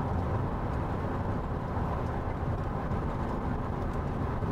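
Steady road and engine noise inside a moving vehicle's cabin while it drives down a paved road.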